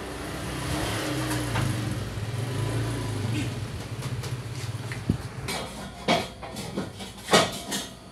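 A steady low engine hum for about the first five seconds, then a few sharp knocks and clatters of objects being handled.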